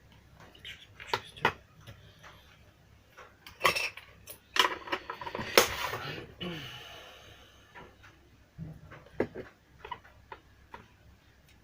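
Small hard objects being handled: a series of sharp clicks and clinks, with a longer scraping, rattling stretch in the middle.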